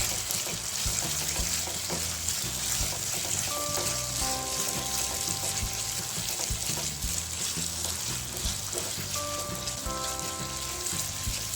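Schezwan chilli-garlic sauce sizzling in hot oil in a pan as it is stirred: a steady frying hiss with light knocks of the spoon, over soft background music.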